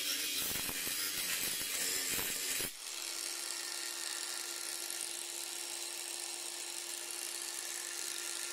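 Cordless angle grinder. For about the first two and a half seconds there is a rough, rattling grinding noise. Then it changes abruptly to the grinder running free with a steady, even whine as it spins a shiny disc made from an old hard-drive platter.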